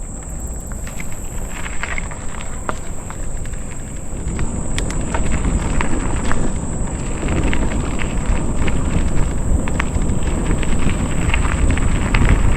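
Wind buffeting the camera microphone as a mountain bike rides along a trail, with tyre noise and scattered rattling clicks from the bike.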